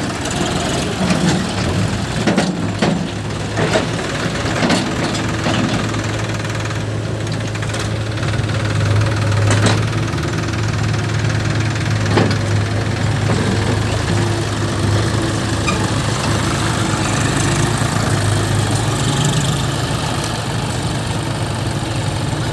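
John Deere tractor's diesel engine running steadily close by, with a few short sharp clanks scattered through.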